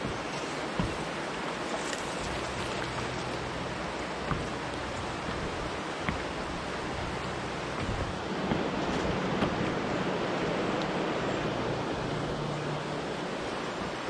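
Shallow river water running steadily over a rocky riffle, with a few brief clicks and a slightly louder patch of splashing near the middle.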